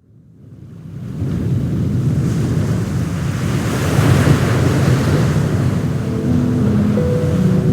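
Sea waves washing in with wind, fading up from silence over the first second and swelling once about four seconds in. Soft sustained music notes come in over it near the end.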